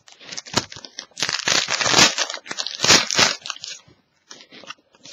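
Trading card pack wrapper crinkling loudly as it is torn open, a dense crackle from about one to three and a half seconds in, preceded and followed by a few soft clicks of handling.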